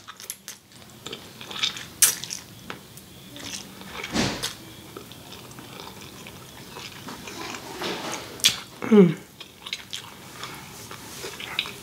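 Close-miked mouth sounds of someone eating noodles: wet chewing, lip smacks and slurps, scattered and irregular, with a short falling hum about nine seconds in.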